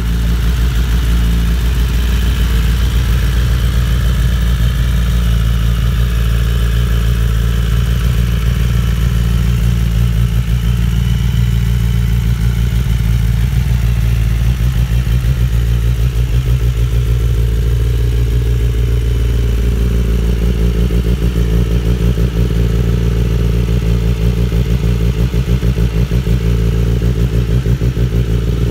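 BMW S1000RR superbike's inline-four engine idling steadily through a full titanium race exhaust.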